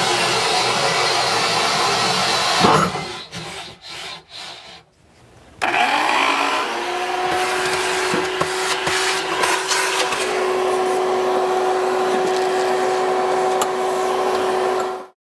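Cordless drill cutting through the countertop with a 1.5-inch hole saw, stopping a little under three seconds in. After a short lull with a few knocks, a vacuum starts about five and a half seconds in and runs steadily with a humming tone, picking up the cutting debris around the new hole, then cuts off just before the end.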